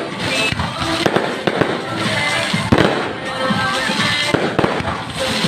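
Fireworks going off in quick succession, a dense run of bangs and cracks, with music playing underneath.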